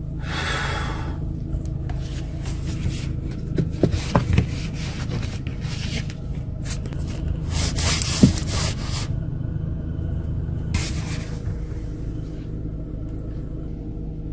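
Rubbing and scraping of a handheld phone being moved about inside a car cabin, over a steady low rumble. The loudest scrapes come about four and eight seconds in.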